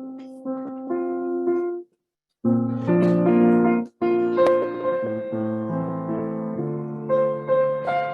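Piano playing the introduction to a solo song: a few single notes, then fuller chords. The sound cuts out suddenly twice, once for about half a second near two seconds in and again briefly near four seconds.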